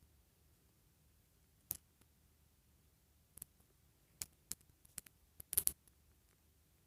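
Scattered small clicks and taps of plastic doll hair pieces being handled and snapped on and off, with a quick cluster of louder clicks near the end.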